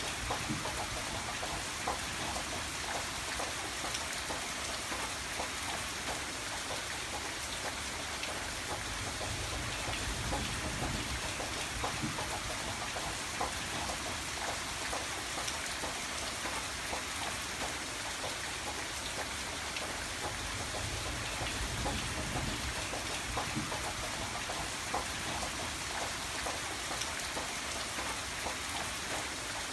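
Steady rainfall, with many small drops pattering on a surface, unchanging throughout.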